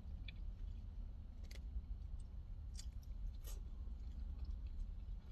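A person chewing a mouthful of lamb over rice, with a few faint clicks, over a steady low hum.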